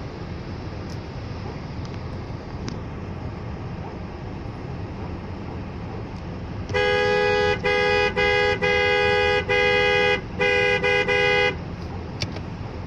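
A two-note car horn honked in a quick, uneven string of about seven blasts, some short and some held, starting about halfway through. A steady low rumble runs underneath.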